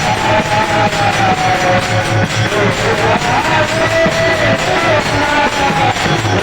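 Marathi devotional kirtan music: a held, gently wavering melody line over a steady drum beat, with jingling percussion throughout.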